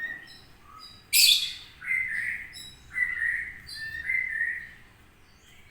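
A kitten mewing: a short, sharp noisy burst, then three high-pitched mews about a second apart.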